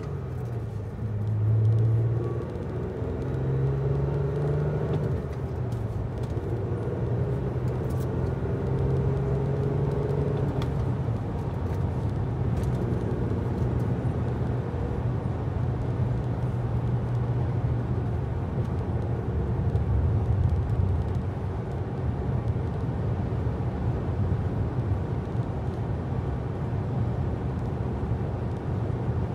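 A motor vehicle running: a steady low engine hum over road noise. Its pitch climbs and shifts in the first few seconds, then holds steady.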